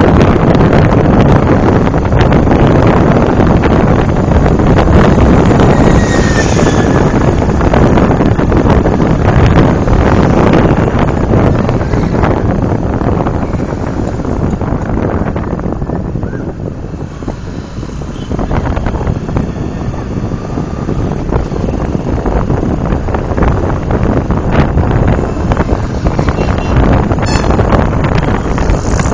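Wind buffeting the microphone on a moving motorbike, a loud steady rush with the bike's motion and road noise underneath. It eases for a couple of seconds a little past halfway, then builds again.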